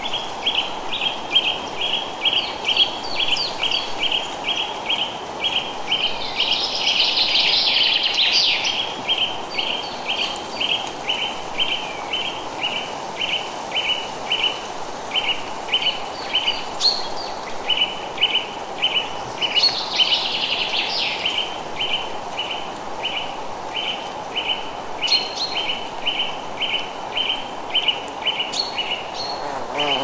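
Forest ambience: a steady rushing of wind in the trees under a long run of short, even chirps, about two or three a second. Bursts of bird song rise over it about 7 seconds in and again around 20 seconds.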